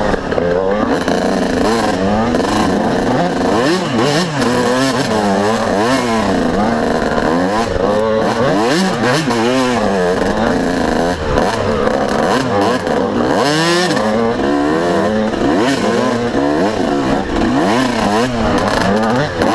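Yamaha YZ125 two-stroke single-cylinder dirt bike engine being ridden hard, revving up and down constantly, its pitch swooping up and falling back about once a second.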